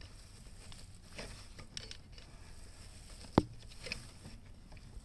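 Faint handling noise of fingers and a screwdriver working the steering-stem bearing nut of a Ninebot ES4 electric scooter: light scrapes and small clicks, with one sharper click about three and a half seconds in.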